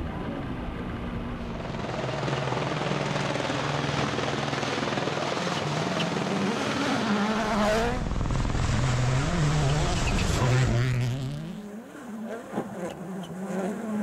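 Rally cars at speed on gravel stages, engines revving hard with the pitch rising and falling through gear changes over tyre and gravel noise. The sound dips near the end before another car approaches.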